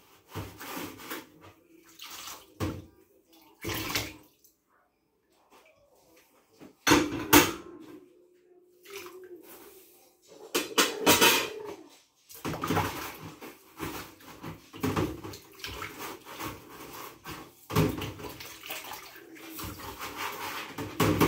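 Washing-up water sloshing and splashing in a kitchen sink as a small glass jar is washed by hand, in irregular bursts with a short quiet lull about five seconds in and busier splashing through the second half.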